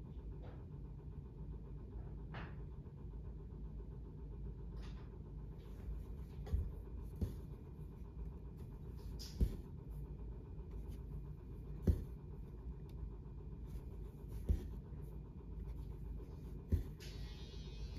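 Hand cross-stitching: a needle and floss being drawn through evenweave fabric, with short sharp taps about every two and a half seconds as each stitch is made. Under it runs a steady low hum from a room humidifier.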